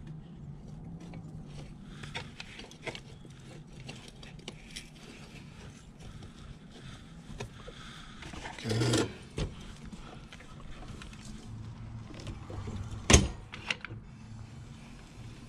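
Handling noises during motorcycle chain work: scattered light clicks, a brief rustling scrape about nine seconds in and a sharp click about thirteen seconds in, over a low steady hum.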